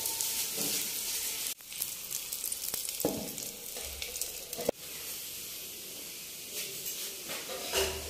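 Oil sizzling steadily under a chicken roll frying on a hot flat griddle (tawa). About three seconds in, an aluminium dome lid clanks once as it is handled over the griddle.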